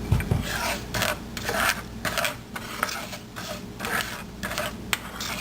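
A spoon scraping and stirring mustard seeds, cumin seeds and urad dal around a pan of hot oil during a tempering, in quick repeated strokes of about two to three a second, with a low knock at the very start.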